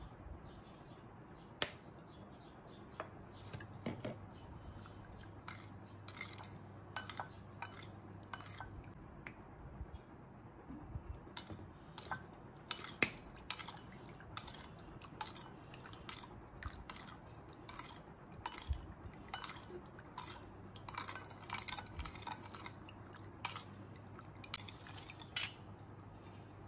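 Porcelain soup spoon clinking against a small ceramic bowl while a soy sauce marinade is stirred: irregular clusters of quick light clinks, sparse at first and busier through the second half.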